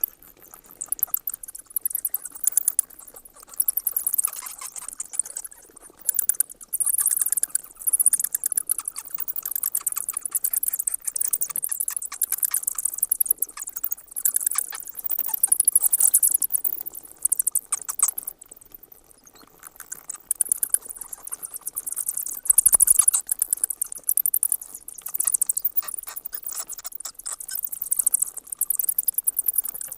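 Bats chattering: rapid, high-pitched squeaks and clicks in bouts of a few seconds, with short lulls between them.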